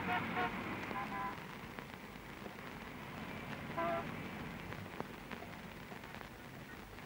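Steady hiss and crackle of an old film soundtrack, with a few short pitched sounds near the start and again about four seconds in.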